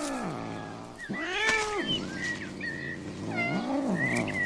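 Domestic cat yowling: long, drawn-out meows that rise and fall in pitch, three in all with short gaps between.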